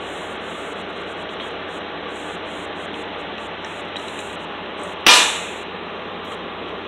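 A hammer strikes a hand impact screwdriver once, a single sharp metal-on-metal blow about five seconds in, driving the bit counterclockwise to break loose a stator screw on a pit bike engine.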